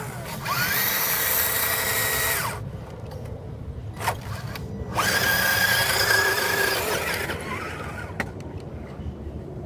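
RC4WD Trail Finder 2 scale crawler's electric motor and gear train whining in two throttle bursts, the pitch rising as each begins and dropping as it eases off, as the truck works against being hung up in mud. The whine fades out near the end as the truck drives off.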